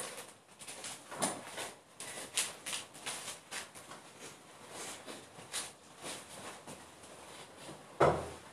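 Scattered faint footsteps and rustling in a small room, then one loud thump near the end.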